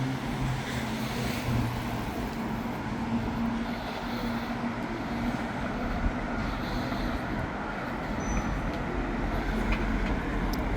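Steady rumble of a moving vehicle, with a low engine hum that shifts slightly in pitch.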